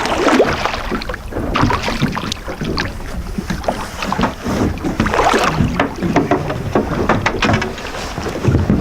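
Small fishing boat at sea: wind buffeting the microphone over a steady low rumble, with many short knocks and clatters of gear on the boat.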